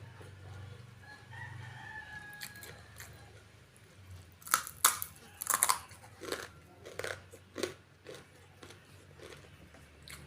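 Close-miked crunching and chewing of raw long beans: a run of loud, crisp bites starting about four and a half seconds in, followed by softer chewing crunches.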